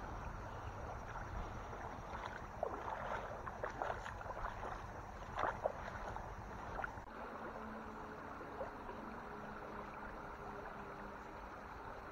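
Water splashing and sloshing around the legs of someone wading through a shallow stream, over the steady rush of the current; the splashes bunch up between about two and seven seconds in. From about seven seconds in a faint steady low hum joins.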